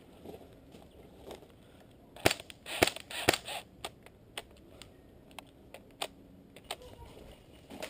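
Airsoft gun firing single shots: three sharp cracks about half a second apart a little over two seconds in, then a few fainter, scattered clicks.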